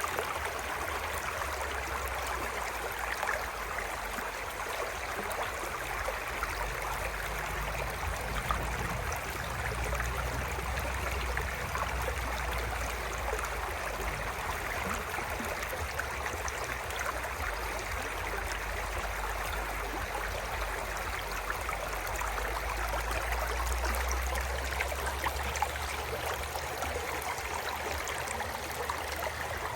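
A little stream flowing: a steady, unbroken rush of running water.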